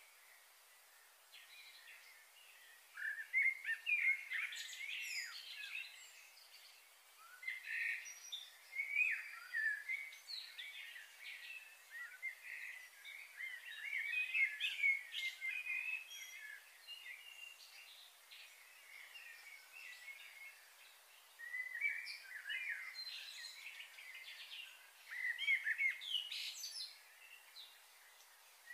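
Small birds chirping and twittering in bursts of a few seconds, with short quiet gaps between, over a faint steady hiss.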